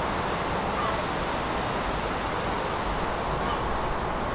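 Steady outdoor city-riverside ambience: an even wash of noise with a low rumble underneath and a couple of faint short chirps.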